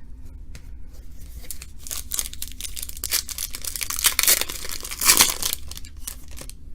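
Trading card pack wrapper being torn open and crinkled, a run of crackling, rustling tears that are loudest twice near the middle.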